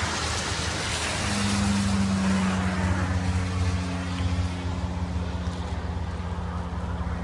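Road traffic on a highway: the rush of a passing vehicle that fades after about three seconds, with a steady engine hum setting in about a second in.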